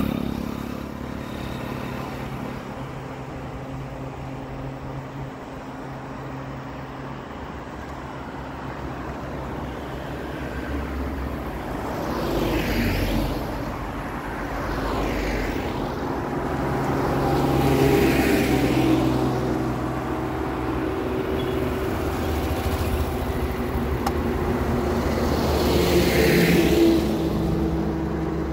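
Road traffic: vehicle engines running steadily, with four vehicles passing, the last near the end.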